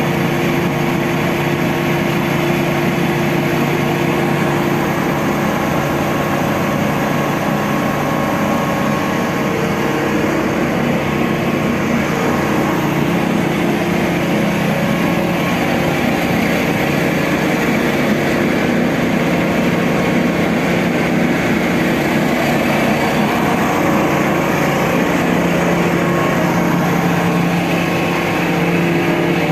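Mobile crane's diesel engine running steadily, with slight shifts in pitch partway through.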